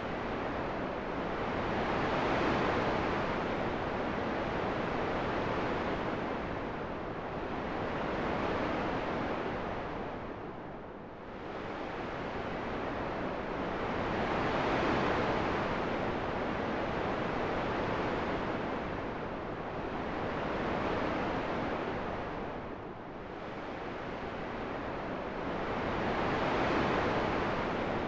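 Wind rushing in slow gusts, a continuous hiss that swells and eases every few seconds, sinking lower twice.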